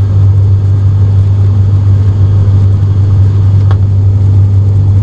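ATR 42-600 turboprop's engine and propeller heard from the cabin beside the propeller in flight: a loud, steady drone dominated by one low hum.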